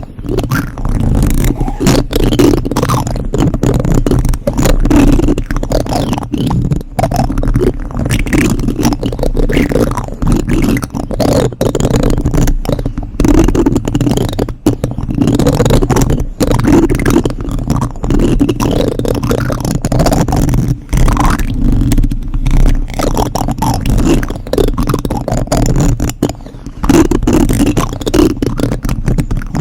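Plastic spoons rubbed and scraped directly against a microphone. The result is a close, continuous scratchy rubbing with a heavy low rumble, broken by many brief gaps.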